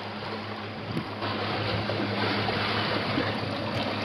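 Wind and sea water rushing past a moving catamaran, with a steady low hum underneath and a small knock about a second in.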